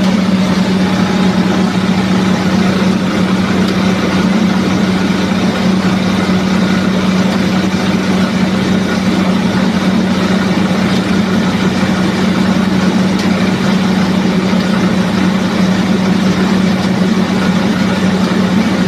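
Combined rice milling machine running steadily: a loud, even machine noise over a strong low drone that holds without change.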